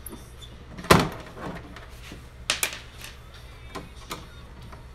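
Sharp clicks and taps of a screwdriver and loose screws against a TV's plastic rear cover while its screws are removed. The loudest comes about a second in, a quick pair follows halfway through, and two lighter ones come near the end.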